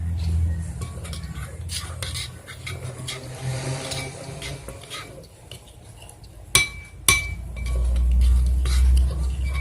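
Runny slime being stirred in a small container, the stirrer scraping and clinking against the sides. There are two sharp knocks about six and a half and seven seconds in, and a low rumble near the end.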